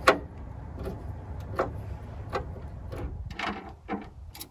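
Scattered clicks and knocks of screws, hardware and hand tools as a cook table is fitted to a Jeep Wrangler tailgate, about half a dozen in all, the sharpest right at the start. A low rumble runs under them and fades about three seconds in.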